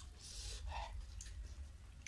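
Fingers squishing and mixing rice with curry on a plate, giving a few soft wet squelches and clicks.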